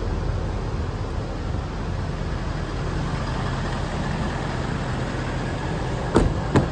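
Ford Power Stroke 6.7-litre V8 turbo-diesel idling steadily, heard from the open cab. Near the end there are two sharp clicks from the rear door handle and latch as the door is opened.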